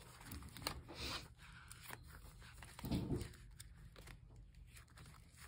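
Faint scratching and rustling of pen on paper, with a few light ticks: writing in a paper planner.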